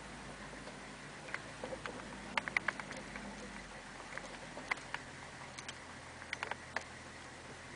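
Scattered light clicks and ticks at an uneven pace over a faint steady hiss, heard inside a truck cab creeping over a rutted, muddy trail.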